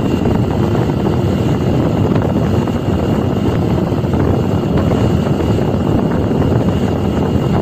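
Motorcycle engine running steadily at road speed, mixed with the rush of wind on the microphone, a loud, even noise that never lets up.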